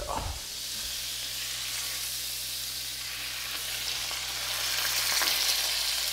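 Walleye fillets and butter frying in bacon grease in a cast iron skillet, a steady sizzle that grows louder about four seconds in.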